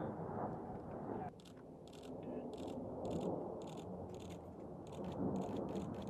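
Distant jet engine rumble of an A-10 Warthog's twin turbofans in flight, with a faint rapid crackle over it; the sound drops away abruptly about a second in and then builds back up.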